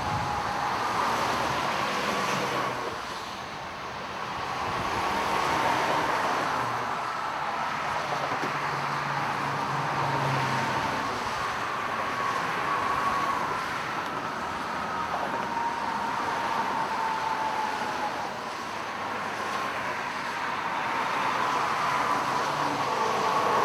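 Steady road traffic noise of vehicles on a freeway, with a faint whine that drifts slowly in pitch.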